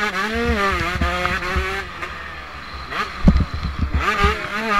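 Motocross bike engine heard from an onboard camera at race pace: it revs up and holds high, backs off about two seconds in, a few sharp thumps follow, then it revs back up near the end.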